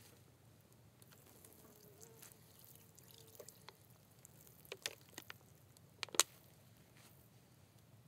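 Water trickling faintly from a tipped plastic water bottle over hands and into a carved wooden basin. Several sharp clicks and knocks come as the bottle is handled, the loudest about six seconds in.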